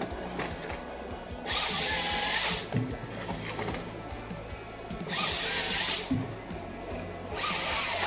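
Ponsse forestry harvester's head chain saw bucking a tree stem into logs. There are three cuts of about a second each, a second to three seconds apart, over the machine's steady running.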